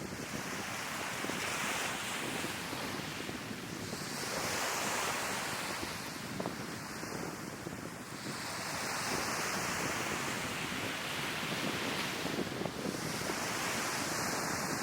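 Sea waves breaking on the shore, the surf rising and falling in swells about every four seconds, with wind on the microphone.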